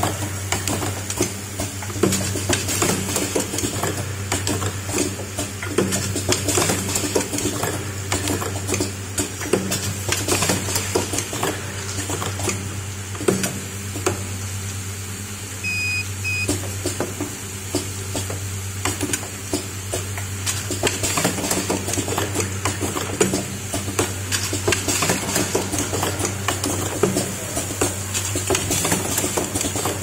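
Vial filling, stoppering and crimping machine running: a steady low hum from its vibratory bowl feeders, with constant irregular clicking and clinking of glass vials and moving parts. Two short high beeps sound about halfway through.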